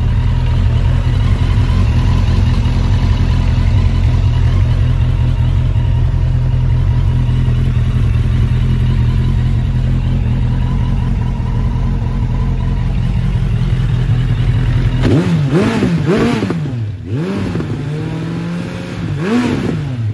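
Suzuki GSF1200 Bandit's inline-four engine idling steadily. In the last five seconds it is revved several times, the pitch rising and falling with each blip of the throttle.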